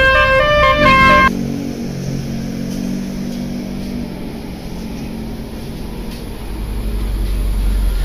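Bus telolet horn playing a quick melody of stepped notes, cut off about a second in. Then a low engine hum, and a bus engine rumbling louder as the coach comes close near the end.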